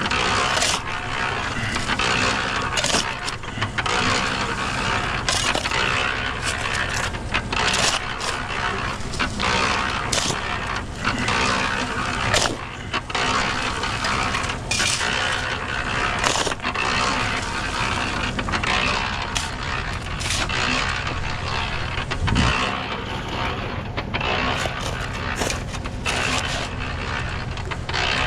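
Construction work: repeated scraping and knocking of hard material, heard over the steady hum of a running engine or motor.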